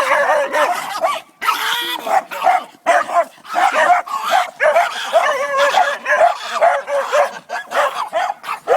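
Two dogs barking at each other, a nearly continuous run of quick, high-pitched yaps and whines.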